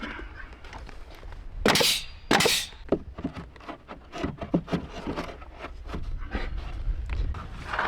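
Two sharp, loud bursts about half a second apart, typical of a fastening tool driving fasteners into wooden cladding, followed by a run of light knocks and clicks.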